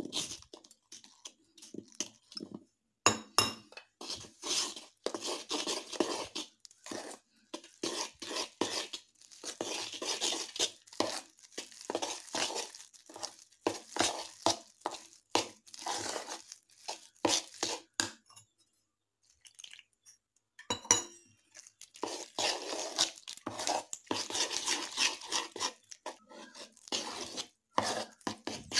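Steel spoon stirring and scraping thick flour batter around a metal bowl in repeated short strokes, with a few sharp clinks of the spoon against the bowl. The stirring pauses briefly about two-thirds of the way through.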